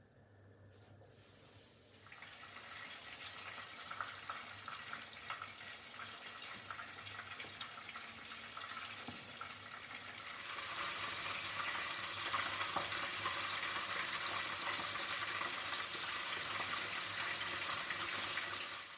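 Batter-coated eggplant rolls deep-frying in hot oil in a pan: a steady sizzle with fine crackling. It starts about two seconds in and gets louder about halfway through as the pan is full of frying rolls.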